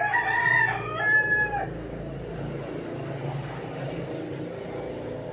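A rooster crowing once, a call of about a second and a half in two parts ending on a held high note, followed by a steady low hum.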